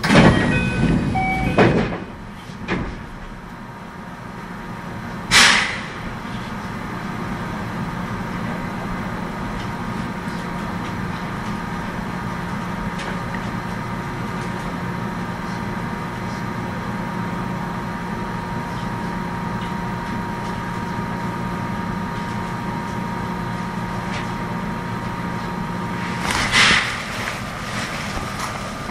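Inside a JR West 521 series electric train: door and brake air noises in the first two seconds, then a short hiss of air about five seconds in and again near the end. Between the hisses a steady hum with held tones keeps an even pitch.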